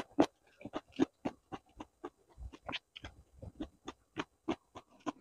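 Close-miked eating sounds: a couple of loud slurps of bakso meatball-soup broth from a spoon at the start, then a run of quick, wet chewing and lip-smacking clicks, several a second.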